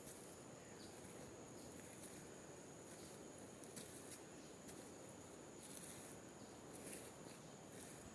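Faint tropical forest insects: a steady high-pitched whine with short, very high chirps coming every second or so, over low background noise.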